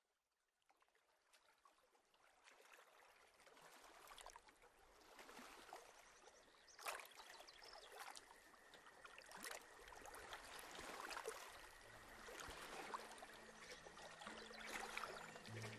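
Faint flowing water of a stream, fading in from silence and growing louder, full of small irregular splashes. Soft, low sustained music notes enter about twelve seconds in.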